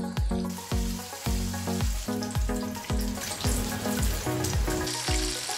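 Battered chicken pieces deep-frying in hot oil in a wok, a steady sizzle that comes in about half a second in. Background music with a steady beat plays throughout.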